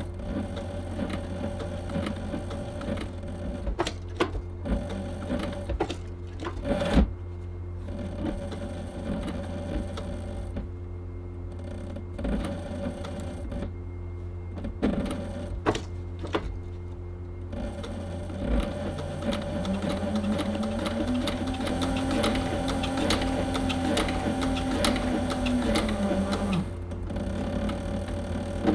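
Cobra Class 3 leather sewing machine stitching through vegetable-tanned leather: the needle punches with a run of clicks over a steady motor hum, in short stints with pauses. In the second half a longer run of stitching has the motor tone rise, hold and then fall away as the machine stops.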